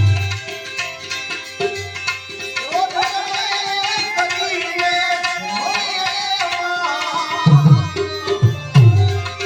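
Gujarati devotional bhajan music: tabla playing under a melody of held notes that slide up in pitch. Heavy low drum strokes come about two seconds from the end.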